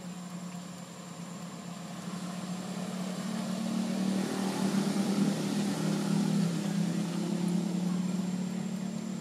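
A motor engine running steadily with a low hum, growing louder over the first few seconds, loudest in the middle and easing off near the end.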